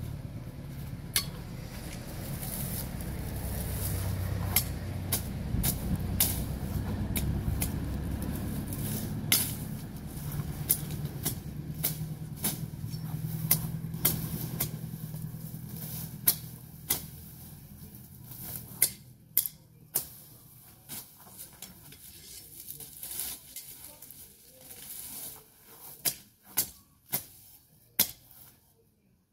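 Machete chopping weeds and grass: sharp strikes, coming in a quicker run of about one or two a second in the last few seconds. Under them, a low hum fades out about eighteen seconds in.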